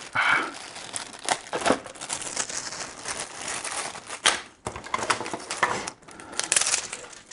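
Small clear plastic bag crinkling and crackling as it is worked open by hand, with many short sharp crackles.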